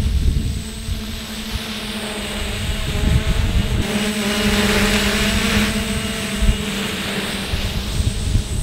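Motors and propellers of a large 12S X-class FPV quadcopter, weighed down by a heavy cinema camera, buzzing in flight with a steady pitched hum. The sound grows louder and brighter as it passes close, about four seconds in.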